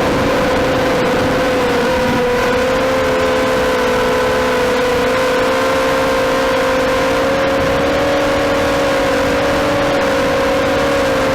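FPV quadcopter's motors and propellers whining steadily, the pitch wavering slightly as the throttle changes.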